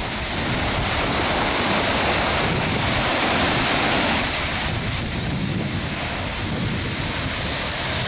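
Heavy storm surf: large waves breaking and foaming up the beach in a steady roar, with wind rumbling on the microphone. A wave breaks louder in the first half, and the roar eases slightly after about four seconds.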